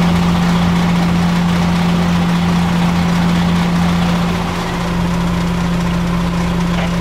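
Fire engine's engine idling with a loud, steady hum.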